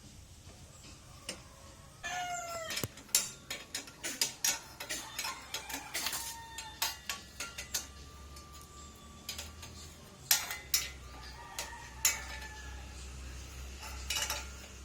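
Metal clinks and knocks of exhaust parts and hand tools being handled while fitting a motorcycle exhaust pipe, a scatter of sharp hits over about ten seconds. A short pitched animal call comes about two seconds in.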